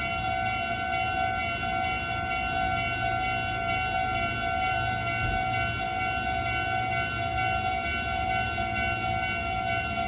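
Meitetsu level crossing warning alarm ringing steadily at fixed pitches, as several crossing signals sound together, the warning that a train is approaching and the barriers are down.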